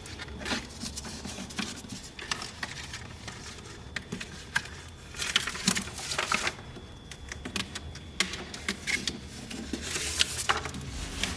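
Hands handling and pressing a plastic strip into a hard saddlebag lid: irregular light clicks, taps and rubbing, with a denser cluster of clicks about halfway through.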